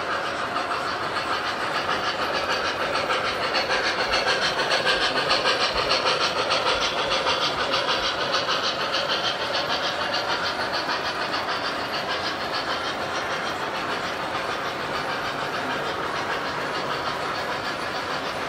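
Model train running on layout track: a steam locomotive pulling passenger cars, its wheels clicking rapidly and evenly over the rails. Loudest around five seconds in as it passes close, then easing slightly.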